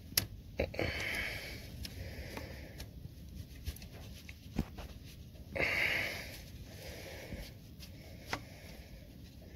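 Faint handling noise of hands working a dipstick tube and its clamp that won't slide down into place: a few scattered light clicks and knocks, with two short hissing rushes, about a second in and just past halfway.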